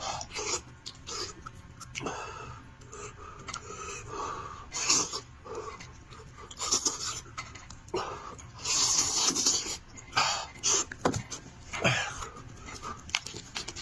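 Close-miked mouth sounds of someone eating sheep's head: irregular wet chewing, sucking and smacking noises coming in short bursts, several a second at times.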